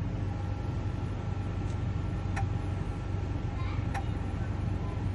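Steady low mechanical hum with a faint whine, and a few faint clicks about two and four seconds in.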